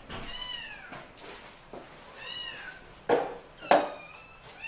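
Domestic cat meowing: two high meows, each rising and then falling in pitch, followed by two sharp knocks about half a second apart, the loudest sounds here. A third meow begins near the end.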